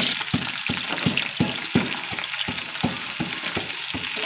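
Onions frying in hot oil with a steady sizzle, over a quick, regular run of knocks, about three to four a second, from a pestle pounding garlic in a mortar.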